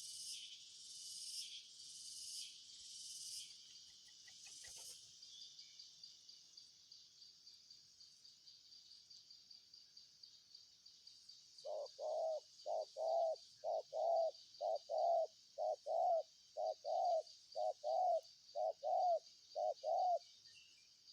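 Spotted dove cooing: a run of about a dozen low double coos, roughly one a second, beginning about halfway through. Under it runs a steady high insect trill, with a pulsing insect chorus loudest in the first five seconds.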